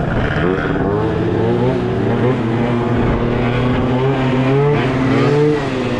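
Moped scooter engine revving under way, its pitch climbing and dropping several times as the throttle is opened and eased, with wind rush on the microphone.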